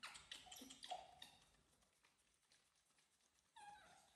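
Baby macaques giving faint short squeaks, several in the first second, then one falling call a little before the end.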